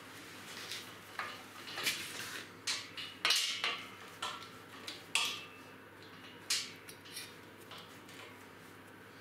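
Socket wrench on a long extension turning a steel nut on a pillow-block bearing mount: short metallic clicks and clinks, some fifteen at uneven intervals, loudest around the middle.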